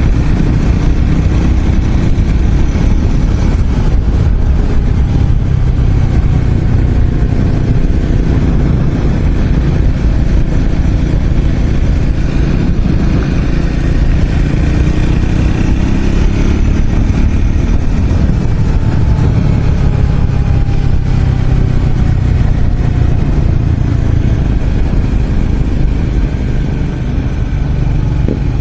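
Triumph Scrambler 400 X's single-cylinder engine and exhaust running under way, the revs rising and falling with the throttle and dropping away in long glides in the second half.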